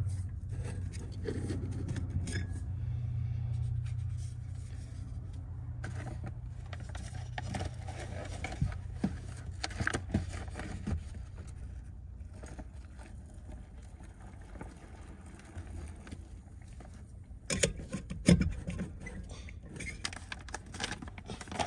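A Jetboil cooking cup and a dehydrated-meal pouch being handled: scrapes, light clinks and crinkling, with a few louder knocks a few seconds before the end. A low steady rumble runs under the first ten seconds or so, then fades.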